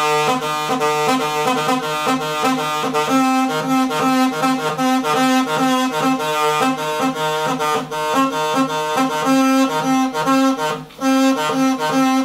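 A single pipe of a reproduction Megara aulos, a double-reed pipe, played in a quick repeated practice figure. The notes alternate rapidly as the thumb hole is worked, with brief breaks for breath about two-thirds of the way through and near the end.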